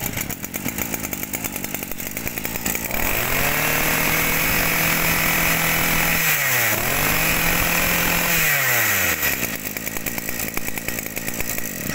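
Maruyama brush cutter engine idling, then revved to full throttle about three seconds in. It dips briefly and picks up again midway, then drops back to idle near the end.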